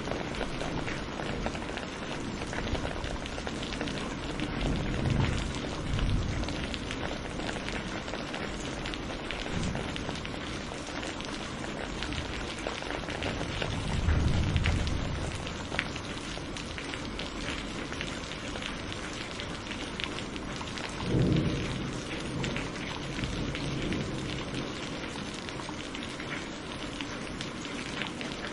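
Steady heavy rain hissing, with three low rumbles of thunder rolling in about five, fourteen and twenty-one seconds in. The last rumble starts suddenly.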